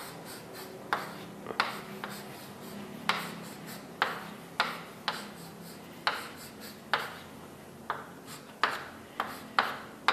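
Writing: about fifteen short, sharp scratchy strokes and taps at uneven intervals, as a structure is drawn out stroke by stroke.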